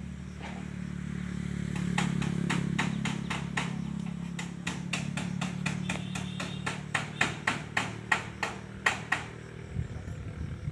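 Hammer striking the metal roofing at the roof ridge, steady blows at about three a second from about two seconds in until about nine seconds in, over a steady low hum.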